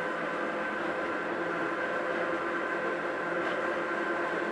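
Hakone Tozan Railway Mo1 electric car running, heard from inside the car: the steady drone of its nose-suspended traction motors and gearing, with several held tones over the running noise.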